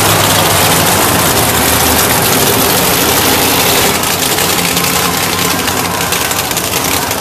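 Monster truck engines idling loudly and steadily.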